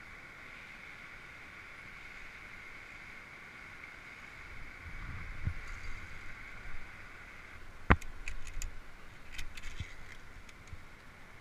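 Footsteps crunching on a gravel ledge path and the clicks and clinks of via ferrata climbing gear on the steel cable, over a steady hiss that stops about two thirds of the way through. A sharp click about two thirds in is the loudest sound.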